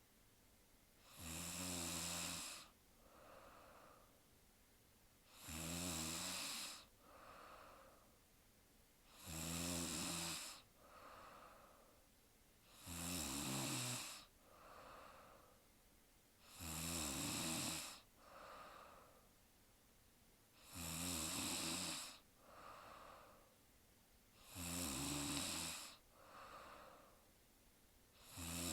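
A sleeping woman snoring in a steady rhythm: a loud snore about every four seconds, eight in all, each followed by a fainter breath.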